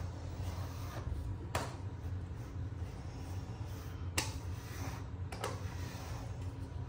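Grooming brush stroking through a tabby cat's fur, with three or four short sharp clicks, over a steady low hum.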